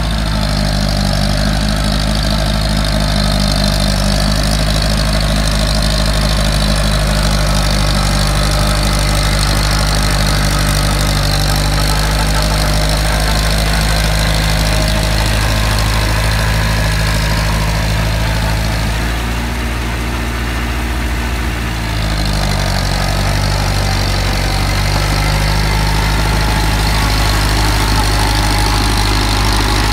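Massey Ferguson 185 tractor's four-cylinder diesel engine running steadily while working through flooded paddy mud. About two-thirds of the way through, the engine note sags briefly as it lugs under load, then picks up again.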